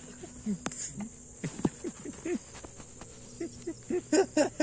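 Children shouting in short, scattered calls while two kids wrestle, the shouts growing louder and closer together near the end. A steady high insect chirring runs underneath.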